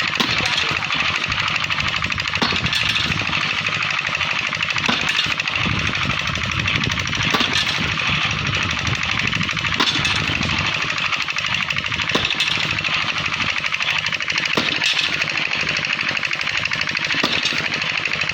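Repair machinery hammering rapidly and steadily, like a pneumatic hammer, with a few sharper knocks now and then.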